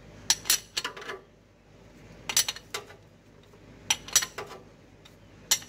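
Steel combination wrench clicking and clinking on a bearing puller's nut as it is turned and refitted, in groups of about three sharp clicks every second and a half. The puller is slowly drawing the axle bearing out of a Toyota 7.5-inch clamshell front axle housing.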